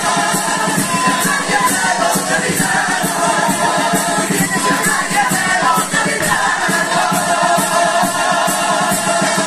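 Cádiz carnival comparsa singing its popurrí: a choir of many voices in close harmony over a steady beat of about two to three strokes a second.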